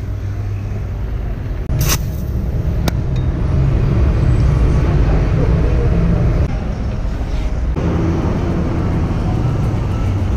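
City street traffic noise, a steady low rumble of passing vehicles, with two sharp clicks about two and three seconds in.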